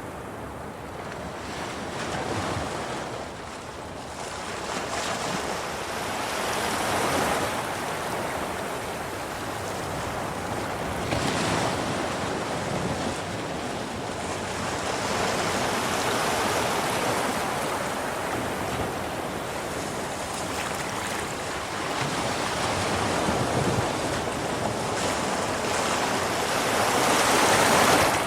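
Sea waves breaking and washing over rocks on a rising tide, surging and drawing back every few seconds, with the loudest surge near the end.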